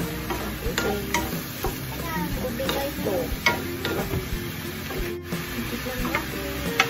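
Wooden spatula stirring squid pieces in a nonstick pan, with irregular knocks and scrapes against the pan, over the sizzle of the soy-and-vinegar adobo sauce cooking down as its liquid evaporates.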